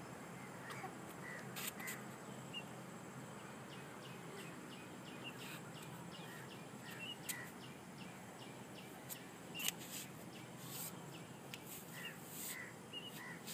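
Faint outdoor ambience: scattered short bird chirps over a steady low hum.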